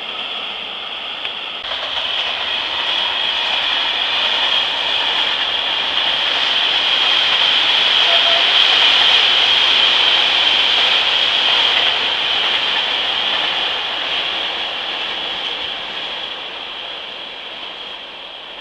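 A train passing, a steady rolling rush that grows louder to a peak about halfway through and then fades away.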